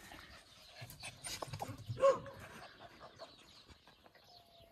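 A wolf pup gives one short whine, rising then falling in pitch, about two seconds in.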